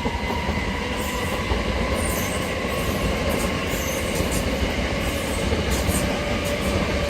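Class 387 Electrostar electric multiple unit, three units coupled, running past with a steady rumble of wheels on rail and a few thin, steady high tones above it.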